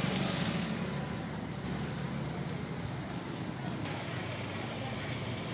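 Street ambience: a steady low rumble of road traffic, with a few brief high chirps near the end.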